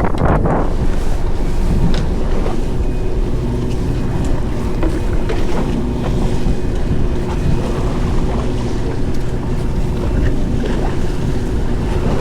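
Steady low rumble of a fishing boat at sea, with wind buffeting the microphone and a brief louder rush right at the start.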